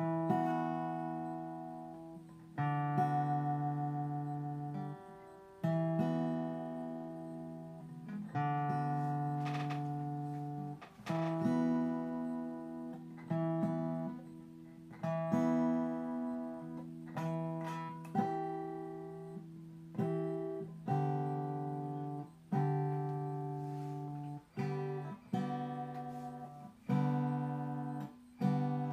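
Acoustic guitar strummed slowly, one chord or note cluster struck roughly every one to two seconds and left to ring and fade, in a loose unhurried rhythm.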